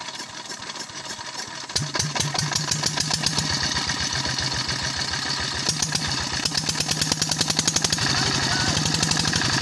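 Single-cylinder diesel engine being turned over by a belt from an electric motor, to start it. Its fast, even knocking begins about two seconds in, speeds up, and gets louder and steadier near the end.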